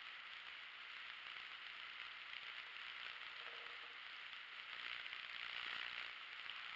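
Faint, soft rustling of hands smoothing and shifting lightweight fabric with a metal ruler laid on it, over a steady hiss, a little louder in the second half.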